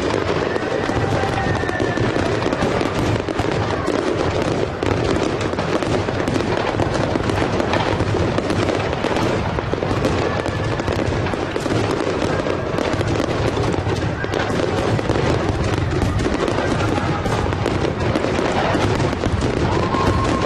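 Aerial fireworks display: a dense, unbroken crackle of bursts going on without pause, with music playing alongside.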